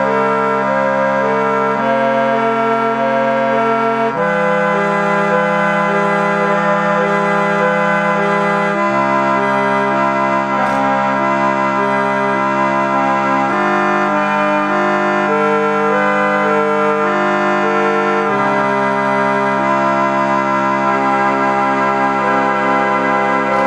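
Bontempi electric chord organ, its reeds blown by a fan, playing held chords on the chord buttons with a melody on the keys above. The chord changes every few seconds.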